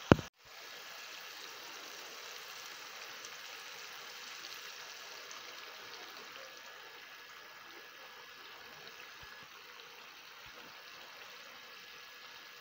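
Pan of tomato stew simmering on a gas stove: a steady hiss, a little quieter in the second half. A single sharp click sounds right at the start.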